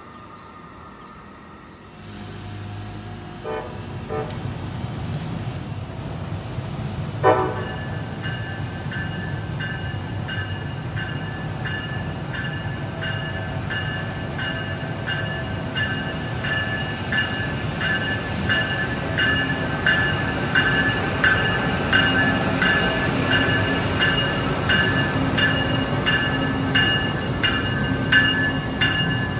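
Amtrak train led by an ACS-64 electric locomotive approaching and passing close by: a rumble that builds, short horn toots a few seconds in and again about 7 s in, then a steady high whine with regular clicking of the wheels over the rail joints as the cars go by.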